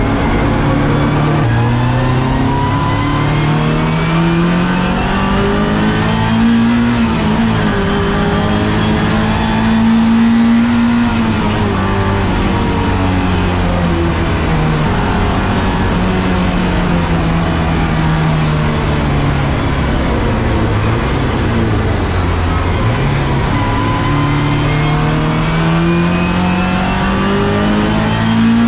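Race car engine heard from inside its stripped cockpit while lapping a circuit. Its pitch climbs in long sweeps under acceleration and drops back at gear changes and under braking, over steady tyre and road noise.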